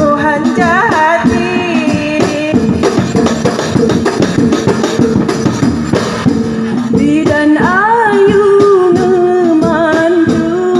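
Music for a dance: a voice sings a wavering melody over held tones and a driving drum and jingling percussion beat. In the middle the singing drops out for a few seconds while fast drumming carries on, then the voice comes back.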